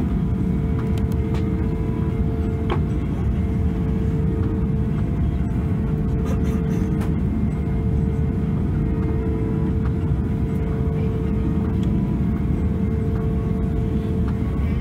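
Airbus A340-600 cabin during taxi, its Rolls-Royce Trent 556 engines running: a steady low rumble with a constant hum, plus a few faint ticks.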